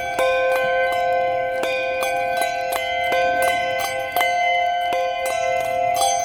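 Handbells rung one after another, about three strikes a second. Each note rings on and overlaps the next, so several bell tones sound together.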